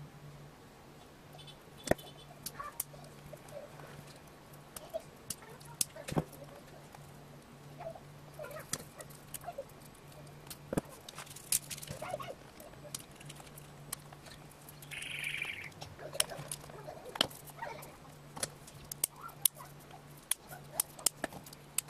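Irregular small clicks, snaps and taps of needle-nose pliers and fingers working on a mini DC fan's plastic hub and blades, over a low steady hum. A short higher scrape comes about fifteen seconds in.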